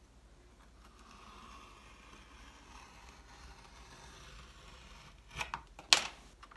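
Craft knife blade drawn through a soft clay slab along a ruler, a faint steady scrape lasting a few seconds. Then come a few sharp knocks near the end, the loudest just before it ends.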